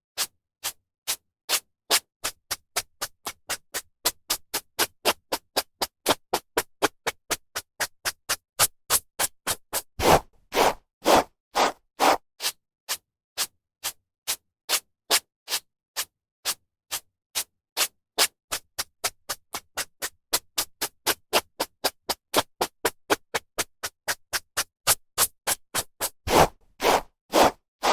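A hairbrush drawn through hair in quick, rhythmic strokes, about two to three a second, with short gaps between. There is a run of longer, fuller strokes about ten seconds in and again near the end.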